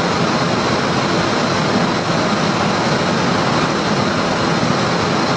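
Steady flight-deck noise inside a Boeing 747 cockpit in flight: an even, unbroken rushing hiss over a low rumble, with no distinct events.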